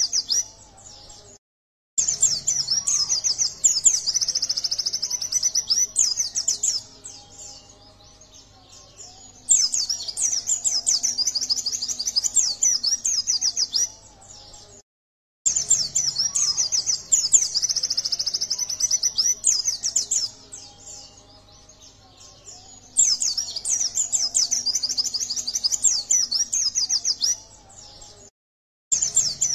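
White-eye (pleci dada kuning) singing a rapid, high, chattering twitter in bursts several seconds long, with quieter spells between them; the song cuts out to dead silence three times for under a second.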